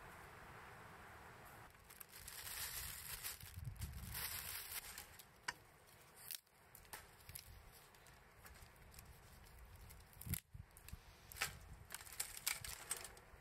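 Faint rustling and crinkling handling noise with scattered sharp clicks.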